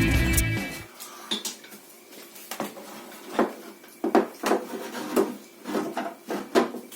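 Small plastic seed pots being handled and set down into a plastic seed-starter tray: irregular light knocks and clatters, about a dozen of them.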